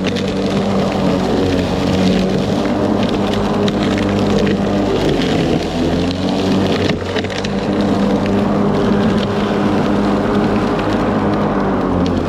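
Ryobi 40V brushless electric lawn mower running under load through brush, a steady hum from its motor and blade. Frequent clicks and cracks come from cut brush and debris striking the deck.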